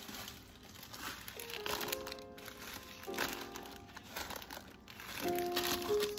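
MAMA instant noodle wrappers crinkling and rustling as a hand shifts the packets about, over background music with a few held notes.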